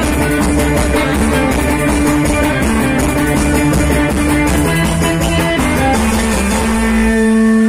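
Loud music with guitar and drums, ending on a long held chord about seven seconds in.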